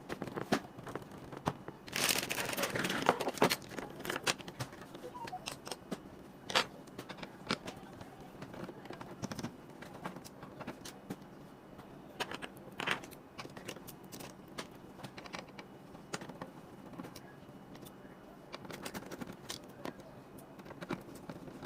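Handling noise from taking apart an all-in-one PC: scattered sharp clicks and taps on plastic and metal parts, with a longer burst of scraping and rustling about two seconds in.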